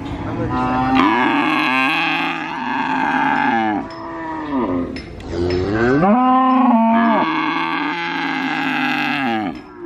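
Calf mooing: two long, loud moos, each rising and then falling in pitch, with a short break between them.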